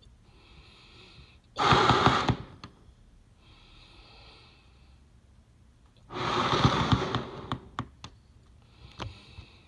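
Person blowing up a rubber balloon by mouth: two long, forceful breaths blown into it, about four seconds apart, with quieter breaths drawn in between. A few faint clicks late on.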